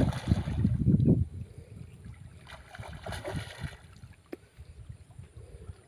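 A hooked fish splashing and thrashing at the water's surface as it is played on a pole rod. It is loudest in the first second, then fainter.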